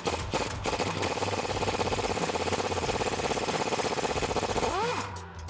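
Pneumatic impact wrench hammering loose the 24 mm nut on a lower strut-to-spindle bolt, a fast steady rattle for about five seconds. It ends with a short whine that rises and falls.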